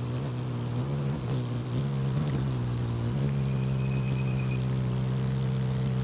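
An engine running steadily with a low hum whose pitch wavers at first, then settles about halfway through. Faint high bird chirps are heard over it.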